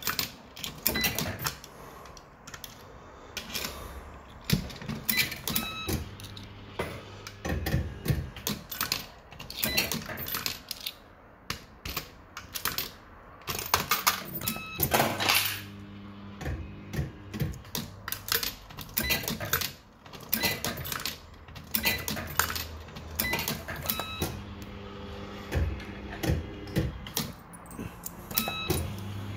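Bell-Fruit Firecracker fruit machine being played: stretches of low hum while the reels spin, broken by many sharp clicks and clunks as the reels stop and the buttons are pressed, with short electronic bleeps at times.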